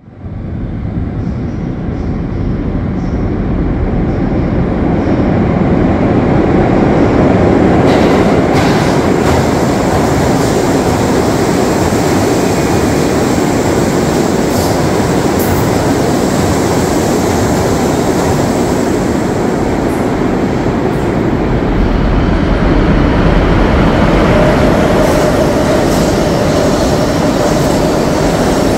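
New York City subway train running in the station, a loud, steady rumble of wheels on rail that builds over the first few seconds. A few sharp clicks come about eight seconds in, and a steady whine joins near the end.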